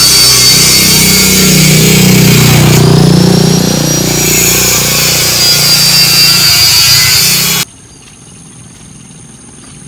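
A small motorbike passes close by and pulls away: its engine note swells and then fades over a loud, steady, high-pitched buzzing hiss. Near the end the sound cuts off abruptly to a much quieter background.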